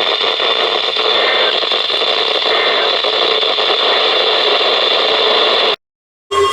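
Steady static hiss from a weather radio receiver tuned to a NOAA Weather Radio station, with a faint steady hum running through it, between alerts. It cuts off abruptly near the end, and after a brief silence a steady alert tone begins.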